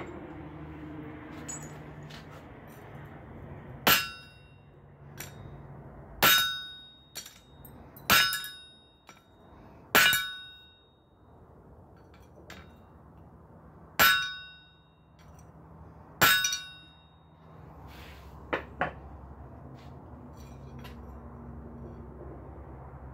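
Hand hammer striking a blacksmith's flatter held on a hot steel bar on an anvil, flattening the bar: six hard blows, each with a bright metallic ring that fades, mostly about two seconds apart with a longer pause in the middle.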